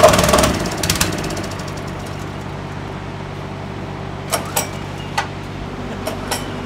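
Plate compactor running at full vibration, dropping back about half a second in; an engine then idles steadily, with a few sharp knocks near the middle and toward the end.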